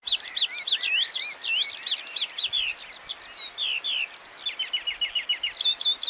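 Eurasian skylark singing: a fast, unbroken stream of high chirps, trills and quick pitch glides, with a run of rapid repeated notes about five seconds in.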